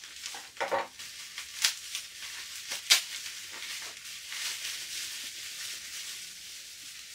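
Plastic bubble wrap crinkling and rustling as it is cut open and pulled apart by hand, with a few sharp clicks in the first three seconds.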